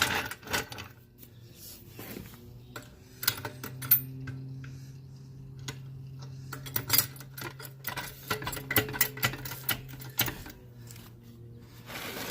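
Irregular metal clicks and clanks as a jack is worked to lift a riding mower, over a steady low hum.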